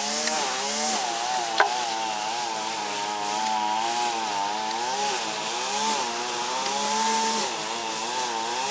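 A small motor running steadily, its hum wavering slightly up and down in pitch, with a steady hiss over it.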